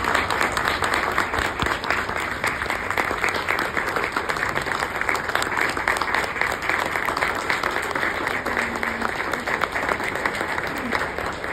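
Audience applauding: many hands clapping at once in a dense, steady stream.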